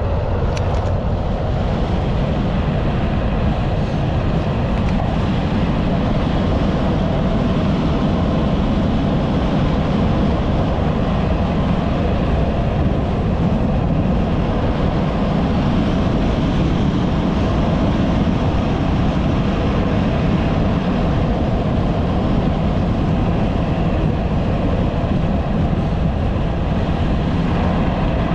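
Steady wind noise rushing over the microphone of a camera on a moving bicycle, mixed with tyre and road noise on asphalt. It is a continuous low noise with no breaks.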